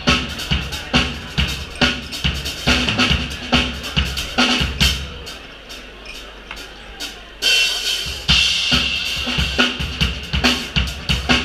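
Drum kit played over a backing track: a steady beat of kick and snare, a thinner break with a few scattered hits about halfway through, then the full beat crashing back in with cymbals about seven seconds in.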